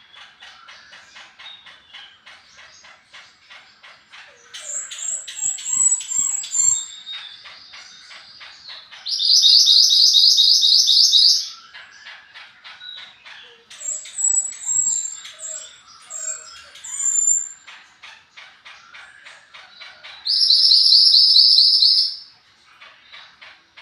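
Mantenan gunung songbird calls: a fast, continuous chatter of short notes, broken by high warbling phrases. Twice, loud rapid trills of about two seconds each stand out, one near the middle and one near the end.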